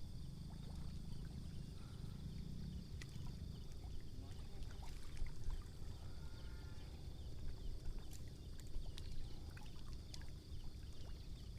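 Outdoor ambience on open water: a steady low rumble with scattered light clicks and ticks, and a faint distant voice about six seconds in.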